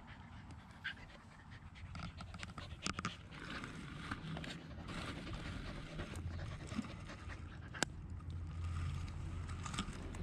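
A dog panting close to the microphone, with scattered sharp cracks and clicks of another dog gnawing on a wooden stick.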